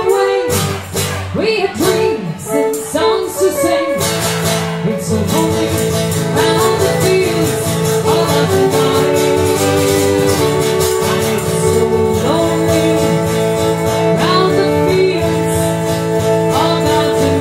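Irish folk band playing live, instrumental: strummed acoustic guitar under held melody notes with slides. About four seconds in, steady low and middle notes come in and the music settles into a fuller, even sound.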